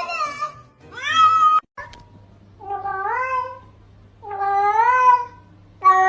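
Domestic cat meowing repeatedly: a string of drawn-out meows, each rising in pitch, about one every second and a half.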